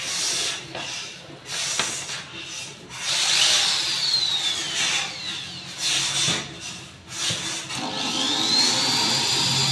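Cordless drill driving screws through a steel hydraulic bed-lift bracket into plywood, running in several short bursts. Its motor whine falls away after a burst a few seconds in and rises again near the end as the trigger is squeezed.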